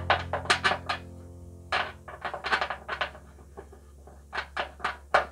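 Irregular short clicks and light metal knocks of hand tools working on fasteners under a car's wheel well, coming in three bunches. A held note of background music dies away during the first couple of seconds.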